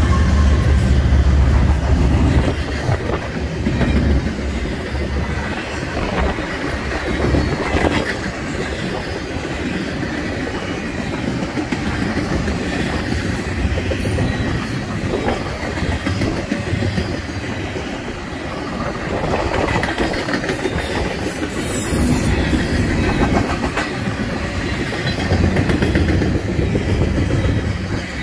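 BNSF train rolling past: a continuous rumble and clatter of cars with wheels clicking over the rail joints, deeper and heavier in the first couple of seconds. A couple of brief high-pitched wheel squeals come through partway along.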